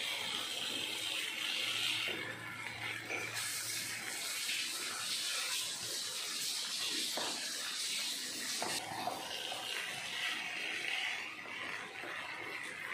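Spatula stirring cooked vermicelli and fried chilli chicken in a pan on the stove: a steady soft hiss with a few light scrapes.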